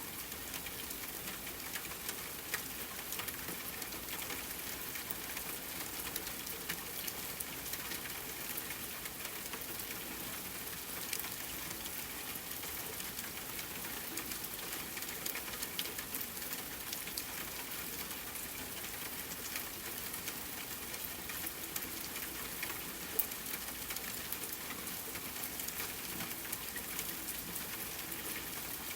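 Steady rain falling: a dense, even patter of drops on a surface, with occasional single louder drop hits.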